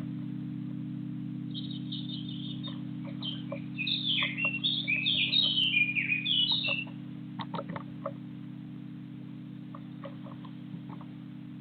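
Garden birds chirping: a quick run of short, high chirps lasting about five seconds, then stopping, over a steady low hum, with a few faint ticks afterwards.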